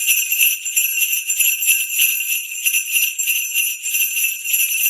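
Jingle bells shaken in a steady rhythm, about three shakes a second, giving a continuous bright metallic jingling.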